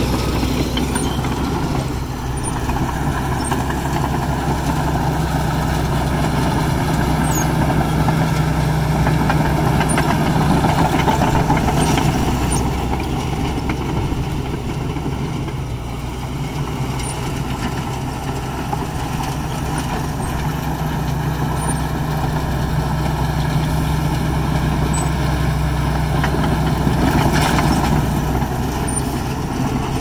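Bulldozer's diesel engine running steadily while working, pulling harder in two long stretches, with a few short knocks.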